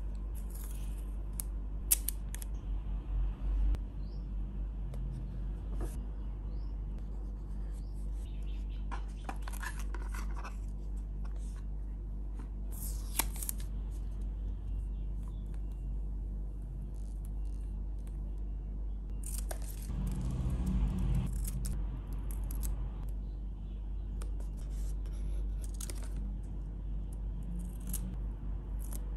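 Washi tape being pulled off its roll and snipped with small scissors: scattered clicks, short crisp scissor cuts and several rustling peels of tape. A steady low hum runs underneath.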